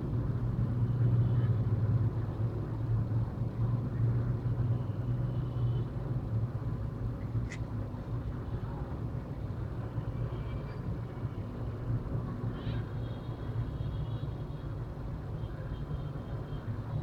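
Steady low background rumble, stronger in the first few seconds and easing after, with a single sharp click about halfway through.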